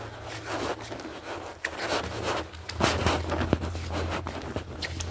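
Footsteps scuffing along a drain tunnel floor, with clothing rustle and a steady low hum underneath.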